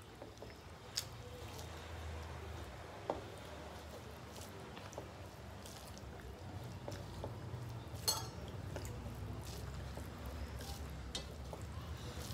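Eating by hand from metal plates: fingers squishing and mixing rice on the plates, with scattered faint clicks and three sharper clinks against the metal, the loudest about eight seconds in. A steady low hum runs underneath.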